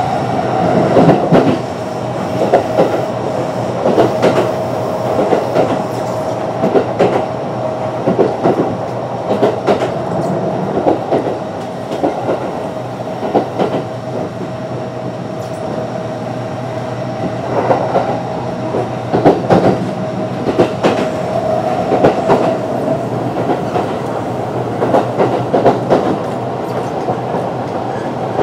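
Kintetsu 9020 series electric train with Mitsubishi IGBT-VVVF control running at speed, heard from on board. Its wheels clack over rail joints, often in close pairs, every second or two over a steady rumble. A steady whine is strong at first, fades through the middle and returns later.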